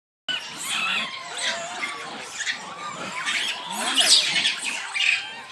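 A troop of rhesus macaques making many short high squeaks and chatters that rise and fall in pitch as they jostle for handfed chickpeas.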